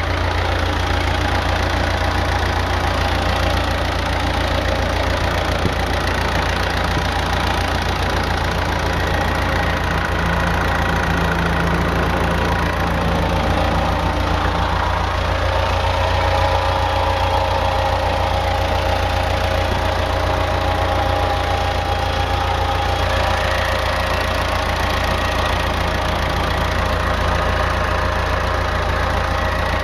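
Diesel engine of a 10 kW generator running steadily on wood gas from a gasifier, with diesel making up only about 20% of its fuel.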